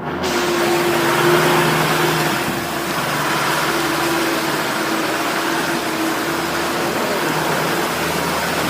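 Off-road truck engine running steadily, a held engine tone under a loud, even rushing noise from the drive.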